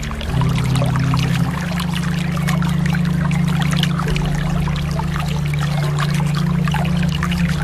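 Water splashing and trickling in a dense, continuous patter, over steady low held tones that shift pitch twice near the start.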